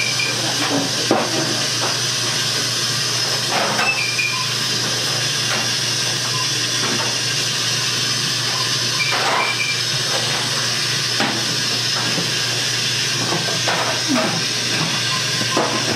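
Steady hiss of steam from a dumpling steamer, with scattered light knocks and clatter and a few short high tones.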